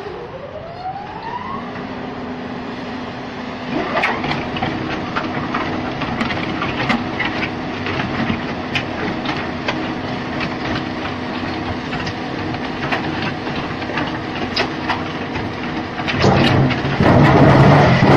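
Concrete pipe making machine starting up: its drive spins up with a rising whine, then runs with a steady hum while the steel pipe mould turns, with irregular knocks and rattles. About sixteen seconds in, the sound grows louder and rougher.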